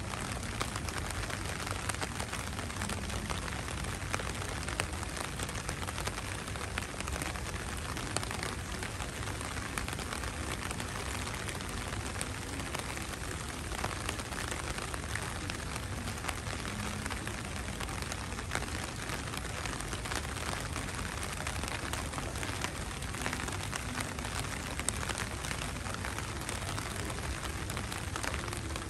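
Heavy rain falling steadily: an even hiss dotted with many small ticks of single drops.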